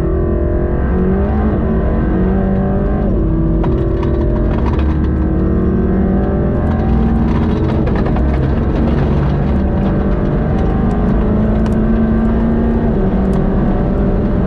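Mercedes-AMG GT Black Series' 4.0-litre twin-turbo V8 under hard track driving, heard from inside the cabin. The engine note climbs and falls with the throttle, dropping sharply about three seconds in and again near the end.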